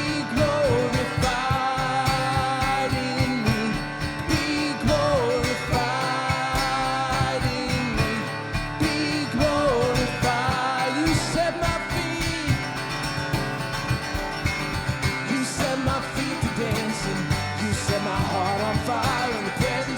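Worship song played by a band with guitar, with singing that rises and falls in long held notes.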